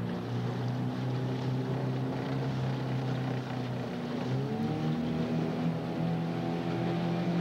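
Outboard motor of a coaching launch running steadily, its pitch rising about four and a half seconds in as it speeds up and then holding at the higher revs.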